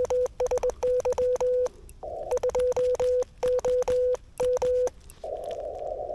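Morse code sent by hand on a straight key through a Yaesu FTX-1F: the transceiver's sidetone, a steady tone of about 500 Hz keyed in dots and dashes, with a sharp click at each key press. It comes in two runs with a short pause between. The receiver's narrow-filtered band hiss is muted while sending and comes back about five seconds in.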